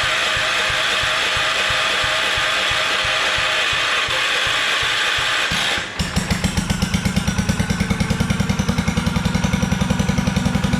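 Old Kohler K-series single-cylinder engine on a log splitter being cranked by its starter, with slow, even strokes under a steady whir. About six seconds in it catches and runs with a fast, even beat: the engine firing after its dirty, under-gapped ignition points were cleaned and reset.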